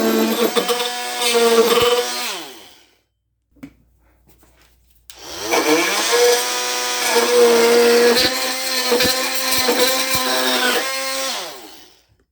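Ryobi brushed oscillating multi-tool at speed 4 cutting into wood trim with a steady buzz. It winds down about two seconds in and falls silent. About five seconds in it starts again with a rising whine, cuts for about six seconds and winds down near the end.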